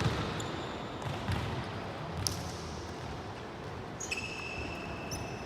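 Indoor volleyball game sounds: scattered sharp knocks of ball hits and footfalls over a steady hall din, then a high, even squeal that starts about four seconds in and is held for over a second.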